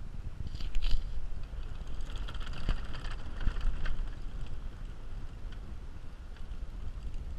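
A safari vehicle driving on a dirt track, heard as a low, uneven rumble with wind buffeting the microphone. Scattered clicks and a brighter hiss come in the first half.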